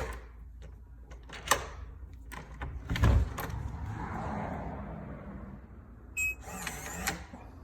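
F31 smart deadbolt lock being worked by hand: a series of sharp clicks and knocks from its keypad and bolt mechanism, with a short electronic beep about six seconds in.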